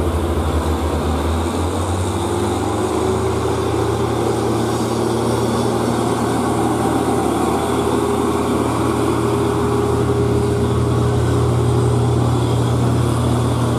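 UD Quester heavy diesel truck engine labouring under load as the truck crawls uphill carrying steel rebar. The engine note steps up about a second and a half in, then climbs slowly and steadily.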